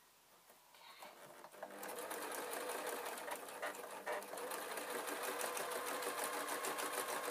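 Domestic electric sewing machine starting up about a second in, gathering speed, then stitching steadily at a fast, even rate through layers of fabric.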